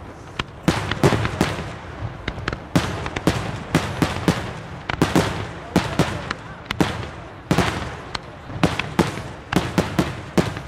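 Fireworks or firecrackers going off in a rapid, irregular series of sharp cracks and bangs, about two to three a second.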